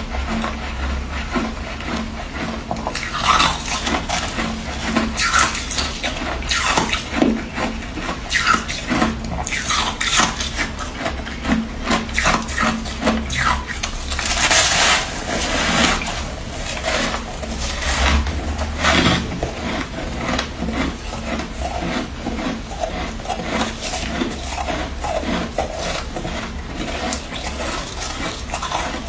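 Freezer frost being scraped and crunched: a long run of sharp, irregular scraping and crunching strokes over a steady low hum.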